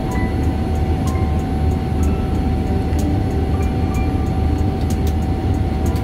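Airliner cabin noise in flight: the steady low rumble of the jet engines and airflow, with a steady whine running through it.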